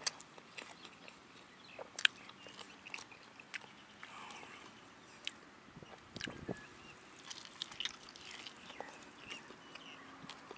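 A person chewing and biting into crispy fried chicken, faint, with scattered sharp crunches and mouth clicks, the loudest about two seconds in.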